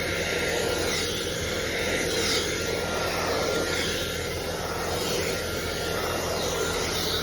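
Handheld hair blow dryer running steadily, a loud even rush of air that swells slightly about once a second.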